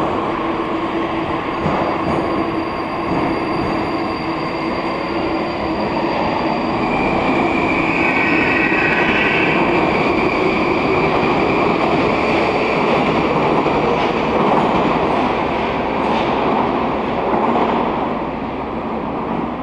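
A Baltiets metro train pulling out of the station and running off along the platform: a loud, steady rushing rumble of wheels and running gear. A higher whine rises over it for a few seconds around the middle.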